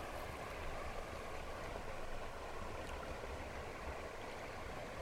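Steady rushing of a river's current, with a low rumble underneath.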